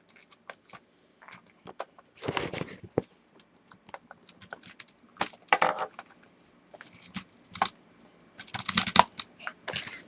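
Plastic surprise eggs and small plastic toys being handled and opened: scattered clicks and rattles, with a few louder rustling, clattering bursts.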